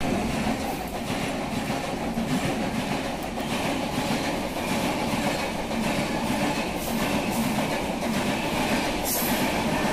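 Passenger train coaches running past at speed: a steady noise of wheels on rails, with repeated clacks as the wheels cross rail joints.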